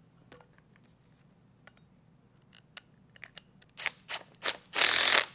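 Cordless impact wrench with a 1/2-inch socket running nuts down onto the carriage bolts of a finger weeder hub. It comes in three short bursts, then one longer burst near the end, after a few faint clicks.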